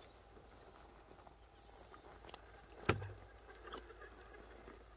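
Hard plastic knocks of an RC crawler on rock: a few light clicks and one sharp knock with a short low thud about three seconds in.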